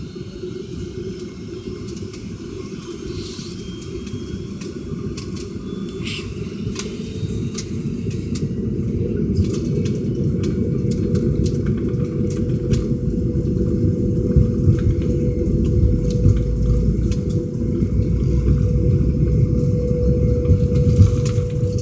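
Heard from inside the cabin, a McDonnell Douglas MD-83 at the start of its takeoff roll: its rear-mounted Pratt & Whitney JT8D turbofans spool up and the rumble grows steadily louder. A steady engine tone settles in about nine seconds in.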